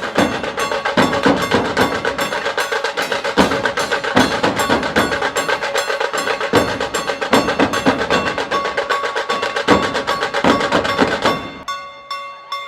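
Instrumental interlude of a Marathi film song, no singing, driven by fast, busy percussion of drum and wood-block-like strikes with held melodic tones above. Near the end the heavy drumming drops out, leaving lighter ticking strikes and sustained notes.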